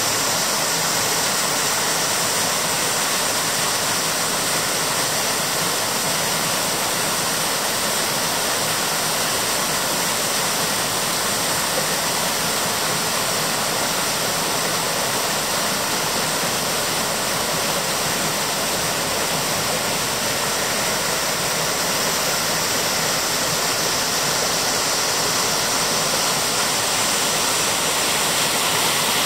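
A waterfall on the Sabando river running: a steady, even rush of falling water.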